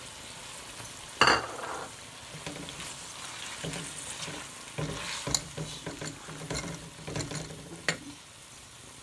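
Onion, garlic, tomato and ginger masala sizzling in hot oil while a spoon stirs and scrapes it round the pan. There is a sharp knock about a second in, and more light scrapes and clicks later.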